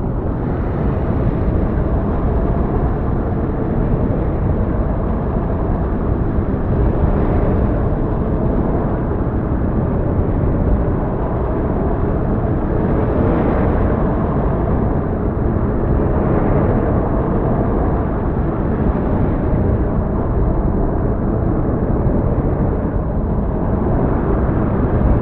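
Heavy storm ambience: a loud, dense, steady rumble of storm noise, heaviest in the low range, with a few faint swells.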